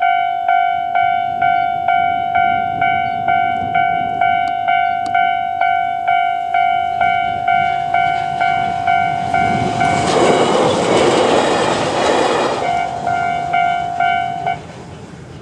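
A level crossing warning bell rings steadily at about two strikes a second. A little under halfway through, an AB900 series electric train passes over the crossing, and its running noise swells over the bell for about three seconds. The bell stops shortly before the end.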